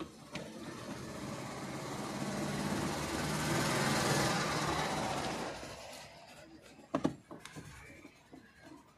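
A passing motor vehicle whose noise swells to a peak about four seconds in and fades away, followed by a sharp click about seven seconds in.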